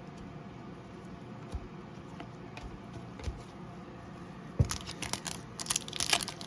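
A trading card pack's foil wrapper being torn open and crinkled, starting with a thump about two-thirds of the way in, after a quiet stretch with a few faint handling clicks.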